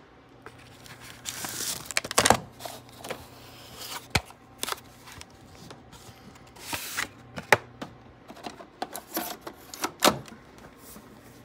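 Plastic 8-track tape cartridges clacking and knocking as they are handled and sorted, with a sharp click about ten seconds in as a cartridge is pushed into the Akai CR-80D-SS 8-track deck's slot. A steady low hum sits underneath.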